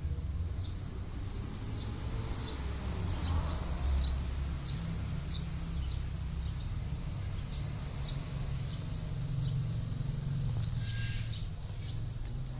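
Outdoor ambience: a steady low rumble under a thin, high insect-like drone with short high chirps repeating about twice a second, and a brief high burst near the end.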